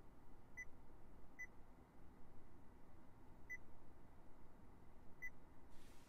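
Four short, high electronic beeps at uneven spacing from the Honda Clarity's dashboard touchscreen, each acknowledging a tap on the rear-camera view buttons.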